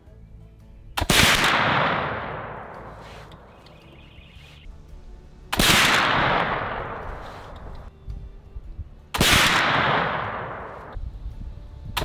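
Three shots from a .36 caliber flintlock muzzleloading rifle built on a Kibler Southern Mountain Rifle kit, each a sharp black-powder report followed by a long fading echo, a few seconds apart. A fourth shot starts right at the end.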